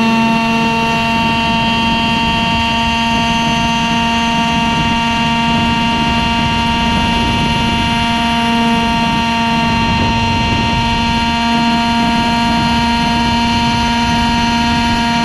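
Model tandem-rotor helicopter in flight, heard from a camera mounted on its airframe: a steady whine of unchanging pitch from the motor and spinning rotors over a rushing of air.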